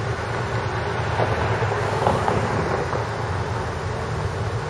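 Steady low rumble of distant engines and traffic, with a few faint clanks about two seconds in.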